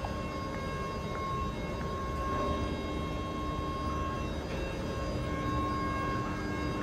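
Alstom Euroduplex high-speed power car standing with its pantograph up, its ventilation and electrical equipment running with a steady hum and a high whine that drops out briefly a couple of times.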